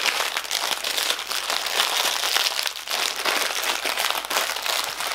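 Small plastic zip bags of round resin diamond-painting drills crinkling as they are handled and laid out: a dense, continuous run of fine crackles.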